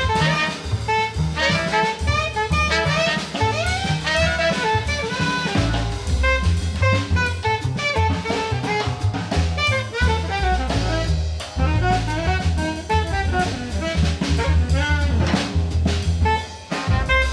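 Small jazz band playing: a saxophone solos in quick runs of notes over double bass and drum kit.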